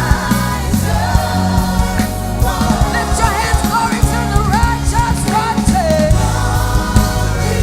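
Live gospel worship song: a choir and lead voices singing over a full band with bass and drums.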